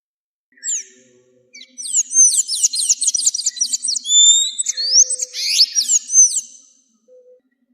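Azulejo songbird singing: a short high note, then a fast, run-on warble of high whistled notes, each sliding downward, with a brief break in the middle.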